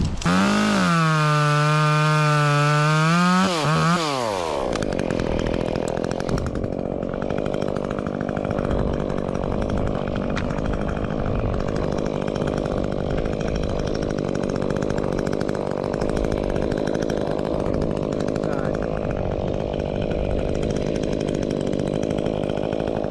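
Two-stroke chainsaw revved at full throttle with a steady high whine for about four seconds. Its pitch then drops as the chain bites into a sycamore stem, and it runs on under load, cutting.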